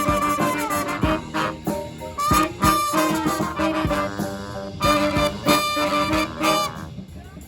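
Street brass band playing, with trumpets, trombones and saxophones. The music stops about seven seconds in.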